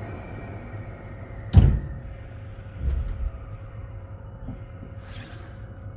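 Haruka limited express train's doors shutting just before departure: a sharp thump about a second and a half in and a duller knock a second later, over the steady hum and rumble of the standing train. A short hiss of air comes near the end.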